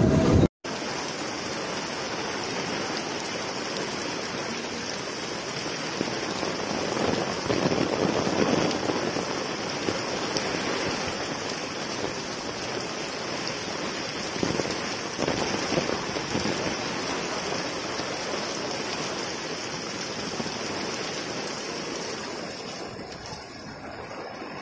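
Heavy rain falling and floodwater rushing along a street, a steady wash of noise without any distinct events.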